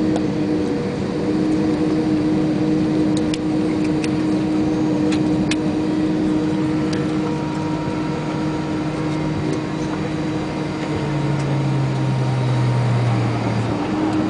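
Steady droning hum inside the cabin of a parked Airbus A320, made of several steady tones over a noisy rush. A lower hum joins about eleven seconds in and drops out again near the end, with a few faint clicks.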